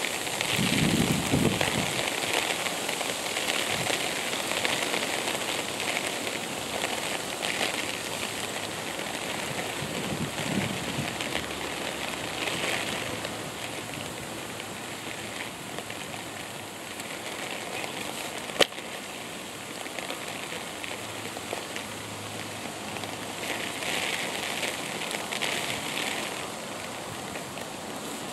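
Steady outdoor rustling hiss that swells and fades in patches, with one sharp click about two-thirds of the way through.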